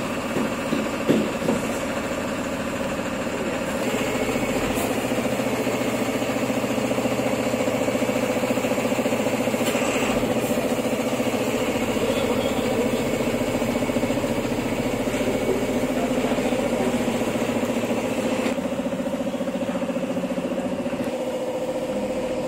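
Truck engine idling steadily, a constant low running hum that grows a little louder about four seconds in.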